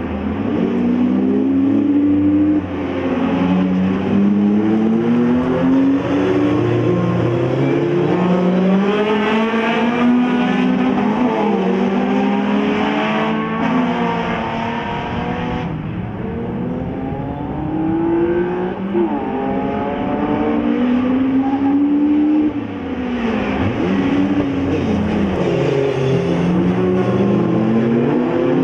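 Several race-prepared hatchback race cars' engines revving hard around the circuit. Their pitch climbs and drops again and again as the drivers accelerate, change gear and lift for the bends, with more than one car heard at once as they pass.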